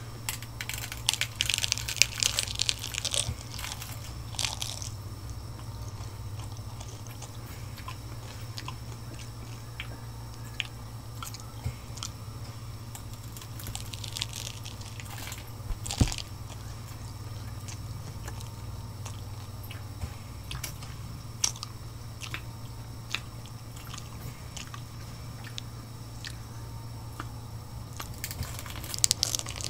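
Close-miked biting and chewing of a crunchy hard taco shell, with loud clusters of crunching near the start, around the middle and near the end, and quieter chewing clicks between. A steady low hum runs underneath.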